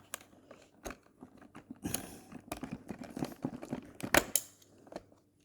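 Irregular plastic clicks, knocks and rattles as a stiff rear wheel of a Shark DuoClean vacuum is wiggled off its metal axle arm, with the sharpest knock a little after four seconds in.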